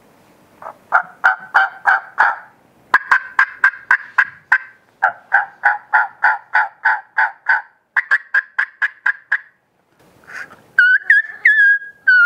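Homemade latex-reed turkey mouth call (diaphragm call) imitating a hen's yelping: four runs of short two-toned yelps broken by brief pauses, the last run quicker. Near the end it switches to a drawn-out, high whistling note with little breaks in pitch, like the call of a young poult.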